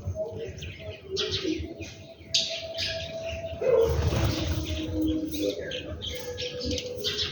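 Small birds chirping in quick short calls, many overlapping, over a few lower held tones. A brief loud rustling noise comes a little past the middle.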